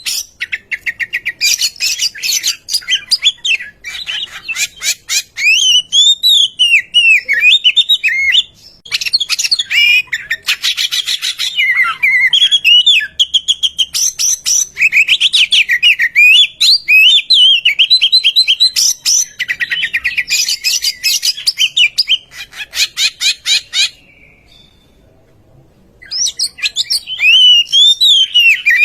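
Oriental magpie-robin singing a long, varied song of whistled notes that sweep up and down, mixed with fast, scratchy rattling passages. It breaks off for about two seconds near the end, then resumes.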